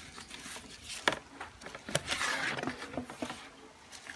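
A cardboard box and a bubble-wrapped book being handled: a couple of sharp clicks about one and two seconds in, a short rustle and crinkle of plastic wrap just after the second, then a few small ticks.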